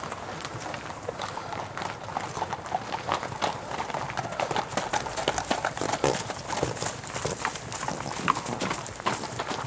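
Hoofbeats of several horses on the move: a dense, irregular run of hoof strikes.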